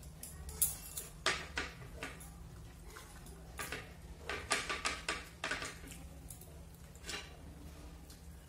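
People eating rice and fish curry with their fingers: scattered short clicks and smacks of mouths and fingers on plates, busiest a little past the middle, over a steady low hum.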